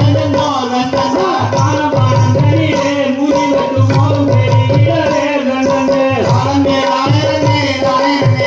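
Tamil folk music for a Valli Kummi dance: a wavering sung melody over a steady held drone, with hand-drum beats and a rattle keeping the rhythm.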